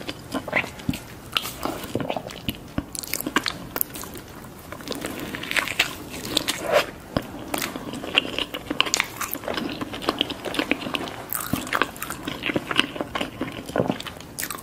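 Close-miked ASMR eating sounds: bites, crunching and wet chewing in irregular clicks and smacks, as bread dipped in curry and a fried potato-stuffed pastry are eaten.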